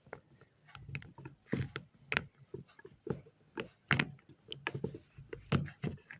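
Wet chalk being handled and crushed, giving irregular crunching clicks and taps, a few louder ones spaced through it.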